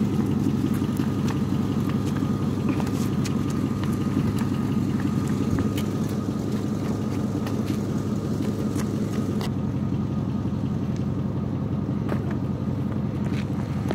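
A steady low rumble with a constant hum, and faint clicks here and there.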